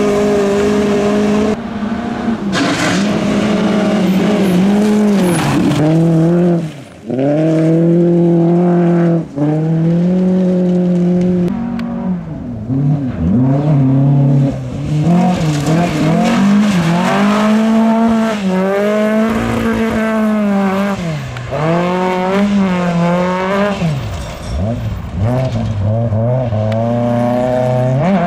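Classic Volvo saloon rally cars driven flat out on gravel, their engines revving hard, with the pitch climbing and dropping over and over through gear changes and corners. The sound breaks off abruptly several times where one passage gives way to another.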